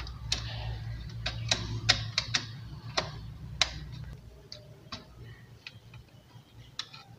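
Irregular sharp clicks and taps from wires being handled and twisted against a plastic electrical switch board, about a dozen, loudest in the first four seconds and fainter after. A low hum underneath fades out about halfway through.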